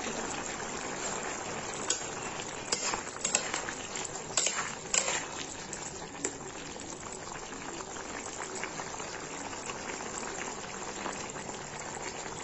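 Bottle gourd pieces simmering in their own released water in a metal kadai, a steady bubbling hiss as the water cooks down. From about two seconds in, a spatula stirs and knocks against the pan for a few seconds.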